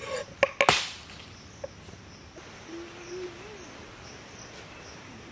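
Two or three sharp knocks in the first second, the last and loudest like a crack, then steady outdoor ambience with faint, high, repeated chirping.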